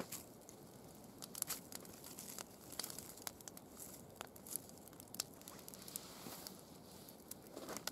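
Small wood fire burning between two logs, crackling with scattered sharp pops, along with crunching and scraping as a log is laid on top of it.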